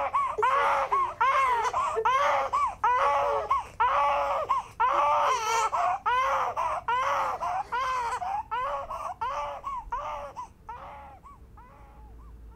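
Young infant crying in a run of short, high wails about twice a second, growing fainter and dying away near the end as the baby settles.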